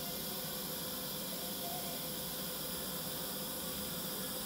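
TIG welding arc on stainless steel tubing, a steady even hiss with a faint constant tone underneath.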